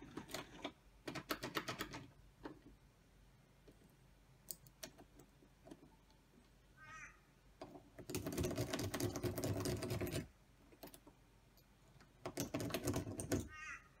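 Rake pick rattling and clicking over the pins of a cheap brass entrance knob lock's pin-tumbler cylinder, in short bursts. A longer, louder rattle of the knob turning and the latch working comes about eight seconds in as the lock opens. The lock gives way to the rake within seconds, showing little resistance to picking.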